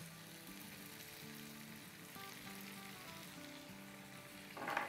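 A cream, butter and oil sauce simmering in a frying pan with a faint sizzle, under soft background music. A brief louder noise comes near the end.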